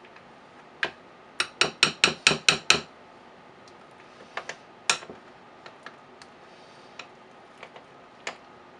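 A metal utensil clinking against the side of a glass mixing bowl as it works through a thick, wet paste. There is a quick run of about eight sharp taps about a second and a half in, then a few scattered fainter clicks.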